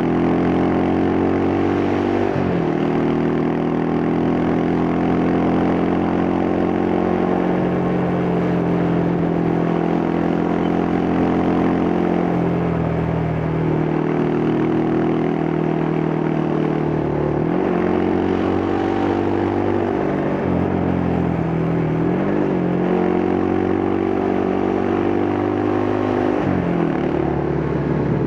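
Yamaha Scorpio's single-cylinder four-stroke engine and exhaust under way, its pitch falling and climbing again several times with gear changes and throttle.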